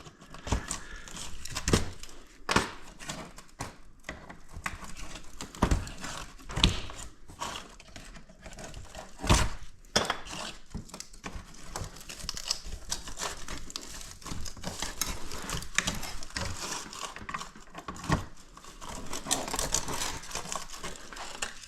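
Hands working copper wire out of scrap pieces: irregular sharp metal clinks and knocks over steady rustling and scraping.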